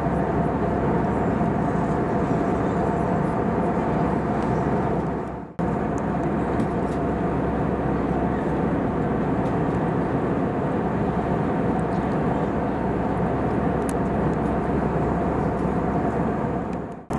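Steady cabin noise of an Airbus A320-214 airliner in flight: a continuous drone of its CFM56 jet engines and rushing airflow, with a few steady hums running through it. The sound briefly dips out twice, about five seconds in and again near the end.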